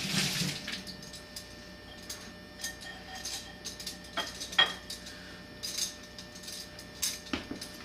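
Eating utensil clinking and scraping against a metal cat-food can in irregular light taps, scooping out the last of the food.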